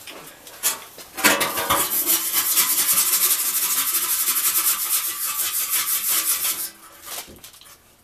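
Hand wire brush scrubbing a metal part in rapid back-and-forth strokes: a harsh, fast scraping that starts about a second in and stops shortly before the end.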